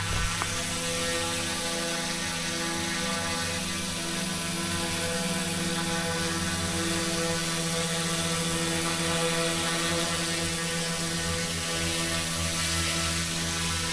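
Small electric RC helicopter in flight: a steady whirring whine from its motors and spinning rotors, wavering slightly in level.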